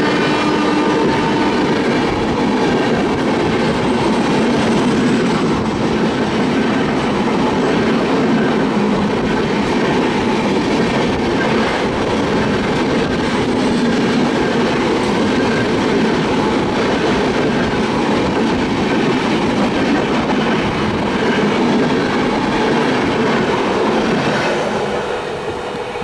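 Rajdhani Express coaches rushing past on the next track, a steady loud rumble and clatter of wheels over the rails. The WAP-7 locomotive's horn dies away in the first second or two. The noise falls off near the end as the last coach goes by.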